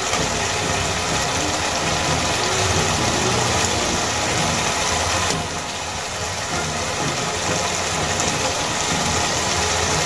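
Soya chunks and spice paste frying in a pan, a steady sizzling hiss over a low hum. The hiss softens for a moment about five seconds in.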